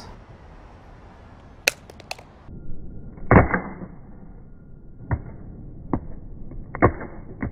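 An iPhone 6S Plus dropped face-down onto stone paving: a few sharp clicks, then a series of hard knocks as it hits the ground and bounces, the loudest about three and a half seconds in. These are the impacts that crack its screen glass.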